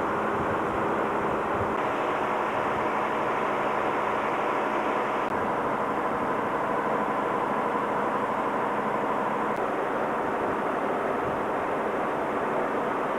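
Steady running noise of a train, an even rumble and rush with a faint hum through it.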